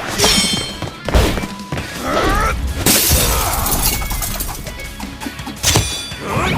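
Music with a run of added crash and impact sound effects, the loudest a glass-shattering crash about three seconds in.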